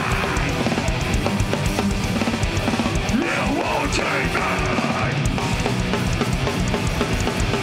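Metalcore band playing: distorted electric guitars over a drum kit, dense and continuous.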